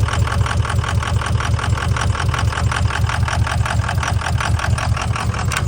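Ford F-350 diesel engine idling steadily shortly after a cold start, with an even, fast rhythmic clatter.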